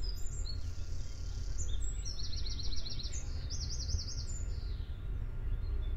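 A small bird singing: quick runs of high chirps, with a trill of rapidly repeated notes about two seconds in and a run of falling notes a little after three seconds, stopping about four seconds in. A steady low rumble lies underneath throughout.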